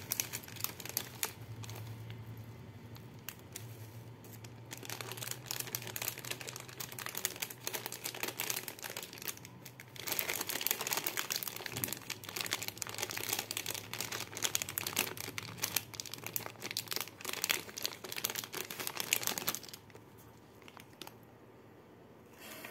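Clear plastic packaging crinkling and rustling as a wrapped necklace is handled out of it. The crinkling grows louder about ten seconds in and stops shortly before the end.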